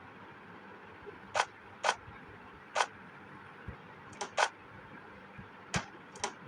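About eight short, sharp clicks or taps at uneven intervals over a faint steady hiss, two of them close together a little past the middle.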